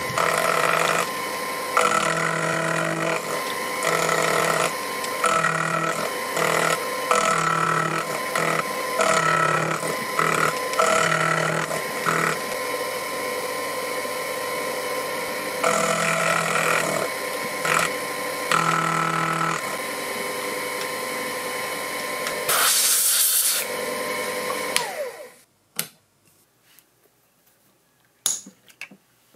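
Proxxon FF 230 micro mill running, its 6 mm end mill cutting a groove into a silver-steel die blank; the pitch swells in regular pulses about once a second as the cutter bites. A short loud hiss comes a little before the mill stops abruptly, followed by a few small clicks of the steel part being handled.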